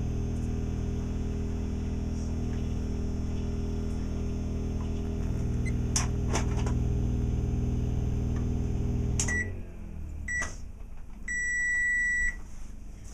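Microwave oven running on an inverter generator's power with a steady hum, which stops suddenly about nine seconds in. Two short beeps and then one longer beep follow.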